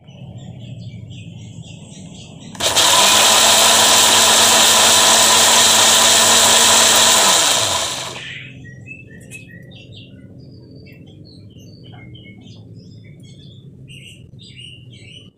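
Countertop electric blender puréeing chilies, shallots, garlic, candlenut, turmeric and ginger into a spice paste for sambal. A quieter low hum comes first, then the blender runs loud and steady for about five seconds before slowing and dying away.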